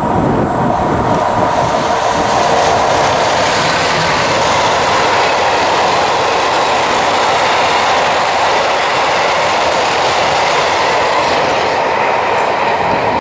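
Freight train of tank wagons passing close by, a steady loud rumble and clatter of steel wheels on the rails. It cuts off abruptly at the end.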